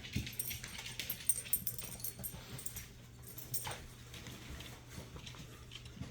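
Four-week-old Alaskan malamute puppies whimpering and squeaking, with scattered small clicks and scuffs, over a faint steady low hum.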